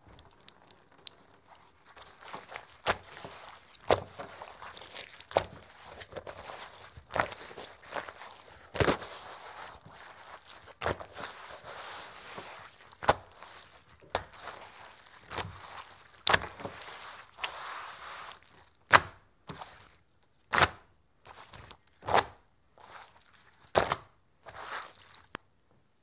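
A soaking-wet dish towel slapped down and wiped across a wooden table: sharp wet slaps every second or two, with a rough wiping noise between them at first, then separate slaps with quiet gaps in the last several seconds.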